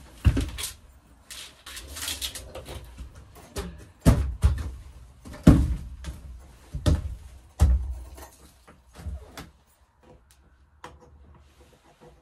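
A string of heavy thumps and knocks, with scraping and rustling between them, from a metal stepladder being moved and climbed in rubber boots on a wooden coop floor. It quiets down over the last couple of seconds.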